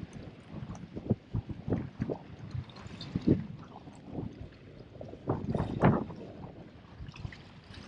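Seawater sloshing and splashing irregularly against shore rocks.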